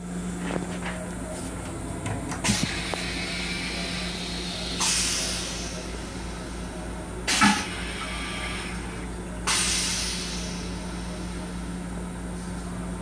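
Inside a Long Island Rail Road M7 electric railcar: a steady hum, with two sudden hisses of released air about five seconds apart, each fading over a second or so. Sharp knocks come a couple of seconds in and, loudest, midway.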